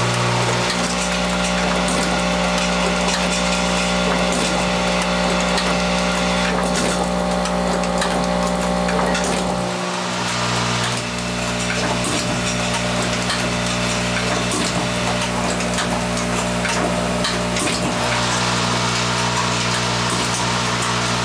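Automated rotary-indexing assembly machine running: a steady low hum with a dense layer of clicks, clatter and hiss from its pneumatic actuators and part feeders. The lowest part of the hum drops away about half a second in and returns about halfway through.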